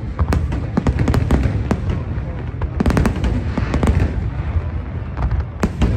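Fireworks display: a rapid string of sharp bangs and crackles from aerial shells over a continuous low rumble, with a dense cluster of reports about halfway through.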